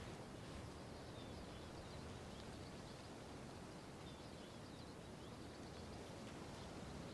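Quiet open-air ambience: a steady low hiss with faint, scattered bird chirps.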